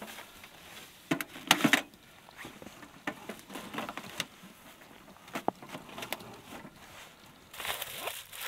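A small sheet-metal wood stove and its chimney pipe being handled and fitted: scattered metal clinks and knocks, with a louder cluster of clunks about a second and a half in. Near the end comes rustling and crunching, from snow, fabric or both.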